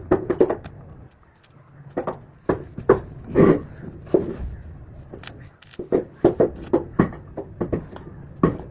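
Irregular knocks, clicks and clatter of objects being handled.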